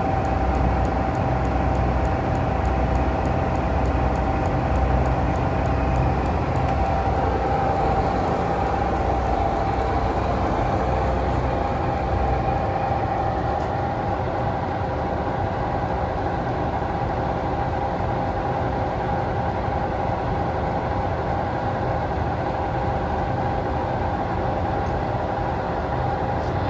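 A 1978 Monarch 613 engine lathe running under power: a steady whine over a low rumble.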